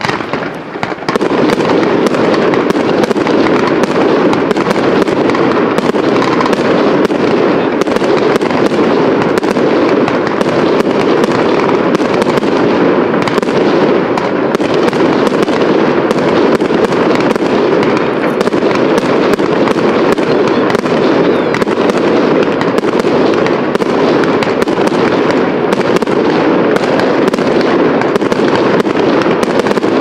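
Fireworks display: a dense, continuous crackling rush of bursting aerial shells and a burning pyrotechnic waterfall, riddled with small cracks and pops. It swells up about a second in and then stays loud and steady.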